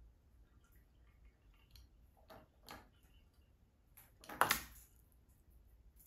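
Small plastic robot fish toy, pushed off the bath rim by a kitten's paw, dropping into the bathtub with a short splash about four seconds in. A couple of faint taps come shortly before it.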